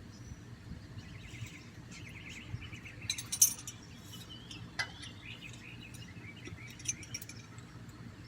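Birds chirping and trilling in the background, with a few sharp metallic clicks and clinks of bolts and a steel heat shield being handled.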